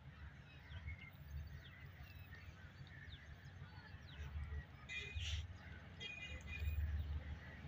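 Faint outdoor ambience: a low rumble, scattered bird chirps, and two short honk-like calls, about five seconds in and again about a second later.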